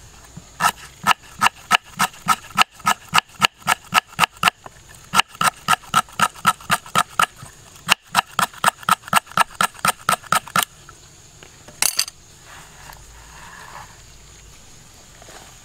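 Rapid chopping with a knife or cleaver on a wooden board, about four even strokes a second with two short pauses, each stroke ringing slightly. The chopping stops about two-thirds of the way through, and a brief clatter follows.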